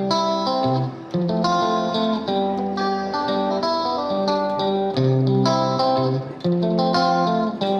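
Background music led by a plucked guitar picking out a melody with a steady beat.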